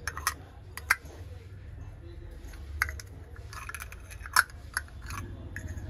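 Handling noise: about six sharp clicks and knocks at irregular intervals, the loudest about four and a half seconds in, over a steady low hum.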